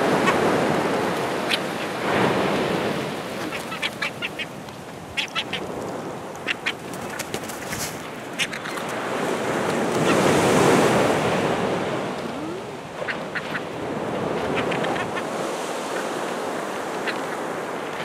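A flock of gulls squabbling over thrown food, giving clusters of short, squeaky cries over the steady wash of breaking surf. A wave breaks loudest about ten seconds in.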